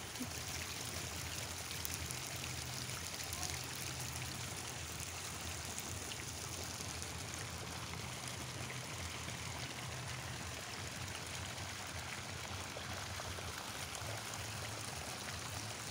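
Hot spring water pouring from standing pipe spouts into a pool: steady splashing with no let-up.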